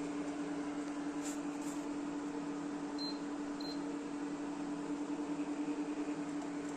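Induction stove heating a pot of milk and water toward the boil, with a steady fan hum and electrical drone. About three seconds in come two short electronic beeps.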